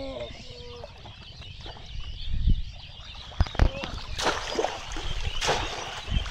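Water splashing as a bamboo polo fish trap is thrust down into shallow water, with low thuds and then two sharp splashes about four and five and a half seconds in.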